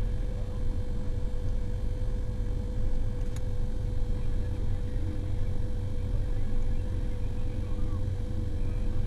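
Motor grader's diesel engine running steadily under load, a low rumble with a constant whine above it.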